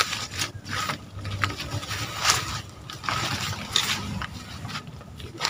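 Footsteps in rubber sandals through grass and weeds, with the leaves rustling: irregular soft scuffs.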